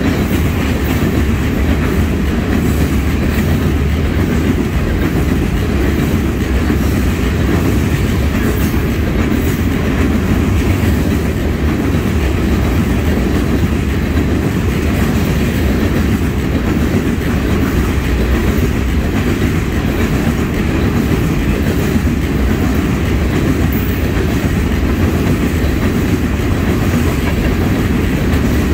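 Freight train of covered hopper cars rolling past close by: a steady, loud rumble of steel wheels on the rails, with no change in pace or level.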